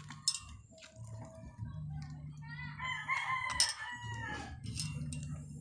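A rooster crows once, a long call starting about halfway through and dropping in pitch at its end. Under it runs a low hum, with a few sharp clicks.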